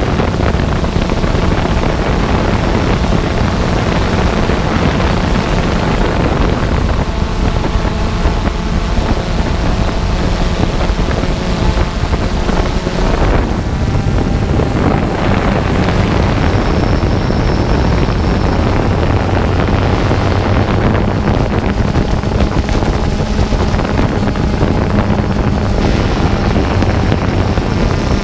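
Quadcopter drone's motors and propellers running, heard on its onboard camera, with wind buffeting the microphone. The steady motor hum shifts in pitch now and then as the drone manoeuvres.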